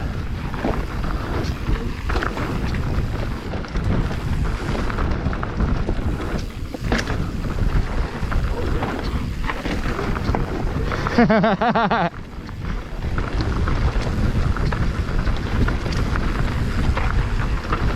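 Wind buffeting the microphone of a mountain bike descending a dirt singletrack, with the bike's steady rumble and scattered knocks and rattles over the ground. About eleven seconds in, a wavering pitched sound lasts about a second.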